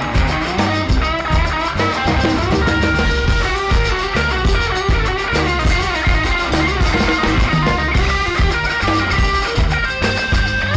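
Live rock band playing an instrumental passage: electric guitar lines over bass and drum kit.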